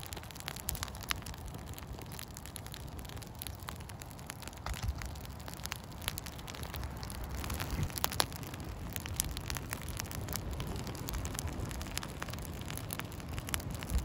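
Small birch-bark and stick campfire burning, with frequent sharp crackles and pops over a steady low rumble of wind on the microphone.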